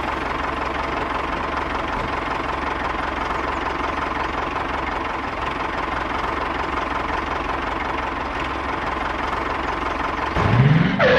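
Small engine running steadily with a knocking sound and a steady whine. Near the end a louder rising sweep cuts in.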